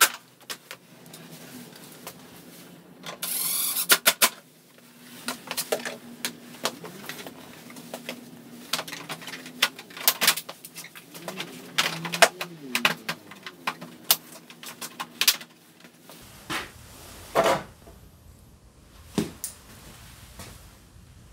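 Irregular clicks and knocks of plastic body panels and parts being handled and fitted on a small step-through motorcycle, with a brief rasping sound about three seconds in.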